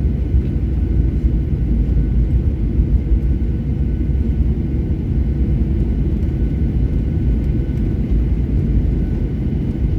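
Cabin noise inside a Boeing 737-800: a steady low rumble from the engines and airframe, with a faint steady whine above it.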